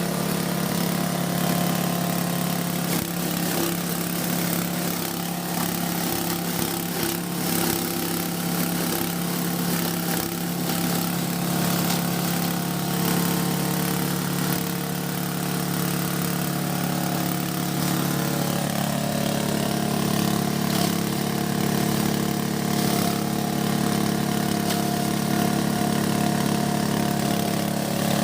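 G-20 multipurpose grass and feed chopper-grinder running steadily at constant speed with an even drone, a few sharp ticks here and there.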